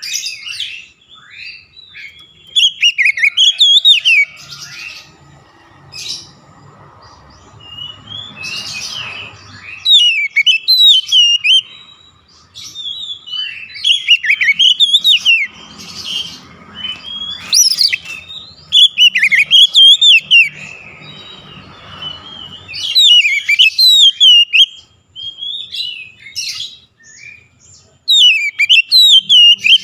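Oriental magpie-robin singing: bursts of rich, quickly sweeping whistled notes and chirps, repeated every few seconds with short pauses between phrases.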